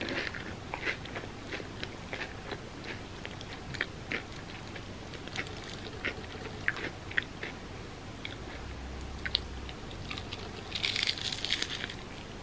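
Close-up mouth sounds of someone chewing crispy fried bread with a mochi filling: scattered crisp crunches and wet chewing, with a denser crackling bite near the end.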